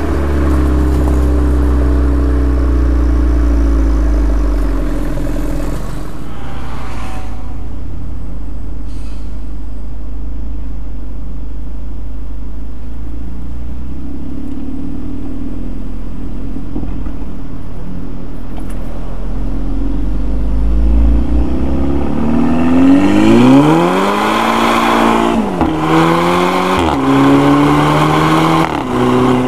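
Volkswagen Golf GTI MK6's turbocharged 2.0-litre four-cylinder, through an APR RSC turboback exhaust, running low and steady. Then, about two-thirds of the way in, it accelerates hard, rising in pitch, with three quick DSG upshifts. Each shift drops the pitch with a short crack, the 'DSG fart'.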